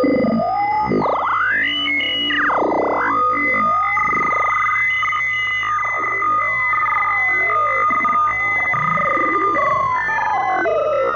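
Synthesized sci-fi 'UFO communication' sound effect: electronic tones sweeping up and down in repeated swoops over a pair of steady high tones that hold throughout.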